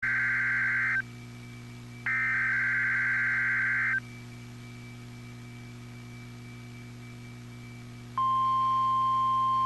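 Emergency Alert System SAME header on NOAA Weather Radio: two warbling data-tone bursts, the first about a second long and the next about two seconds. After a pause, the steady single-pitch weather radio alert tone starts about eight seconds in, signalling a tornado watch. A faint steady hum runs underneath.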